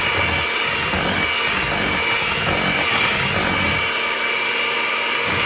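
Electric hand mixer running steadily, its beaters churning cake batter in a bowl. The motor is very loud, with a steady high whine over the noise of the motor.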